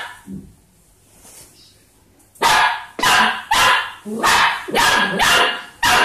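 Puppy barking: one sharp bark at the start, then after a pause of about two seconds a run of short, high barks, about two a second.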